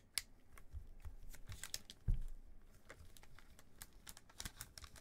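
Hands handling trading cards and their plastic packaging on a desk: scattered small clicks and crinkling rustles, with one low thump about two seconds in.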